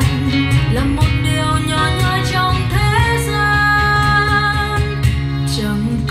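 A song playing, with guitar over a steady bass line and a melody that holds one long note through the middle.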